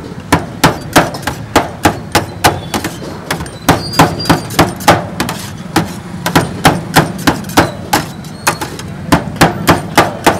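A metal blade striking a flat iron griddle in quick, uneven chops, about three a second with a couple of short pauses, as cooked chicken is chopped up on it.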